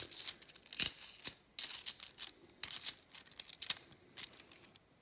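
A stack of UK 50p coins clinking and sliding against each other as they are fanned through in the hand. It comes as irregular short metallic clicks.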